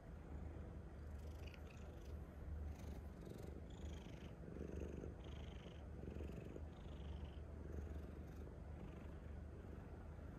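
Domestic calico cat purring while being stroked.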